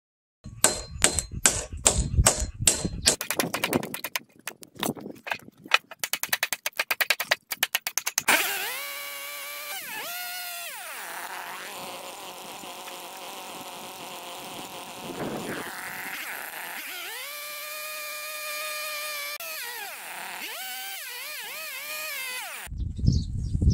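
Rapid repeated knocks for the first several seconds, then a cordless DeWalt circular saw cutting through a timber post. Its whine rises and falls twice as the blade spins up and slows, and the sound stops abruptly near the end.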